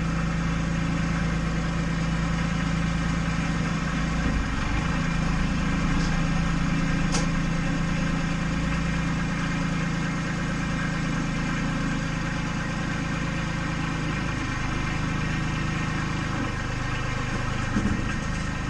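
An engine running steadily at idle, an even hum with a slight shift in pitch about fourteen seconds in.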